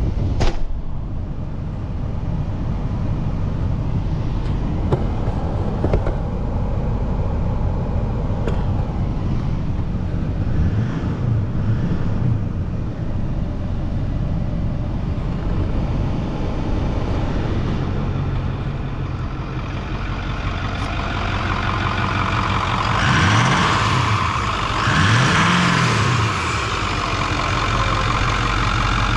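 Ford F250's Power Stroke turbo-diesel engine running at idle with a steady drone, heard first from the cab and then under the open hood. There is a sharp click right at the start, and near the end the engine sound rises and falls twice.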